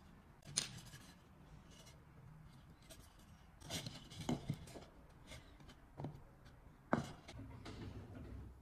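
A few sharp, light knocks and clicks of wood pieces and hand tools being handled at a workbench: one about half a second in, a quick cluster near the middle, and two more toward the end.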